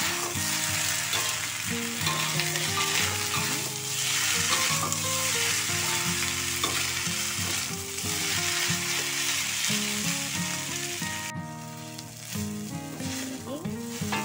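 Glutinous rice sizzling in a wok as a metal spatula stirs and scrapes it, over background music. The sizzling drops away abruptly a little past eleven seconds in.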